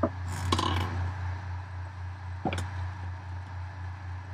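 Steady low electrical hum with a few short clicks: one at the start, a noisier one about half a second in, and another about two and a half seconds in, fitting mouse clicks at a computer desk.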